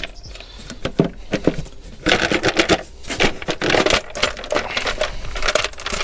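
Irregular clicking and clattering as the freed valve cover is handled and lifted off the engine, with small hard knocks of metal and plastic parts.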